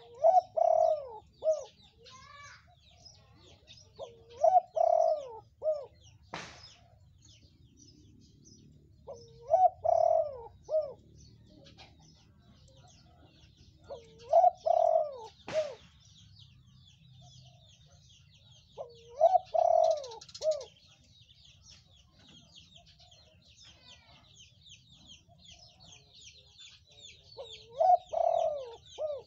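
Spotted dove cooing: six short phrases of a few deep coos each, several seconds apart. Faint high twittering of small birds runs underneath, and two sharp clicks fall about a third of the way in and about halfway.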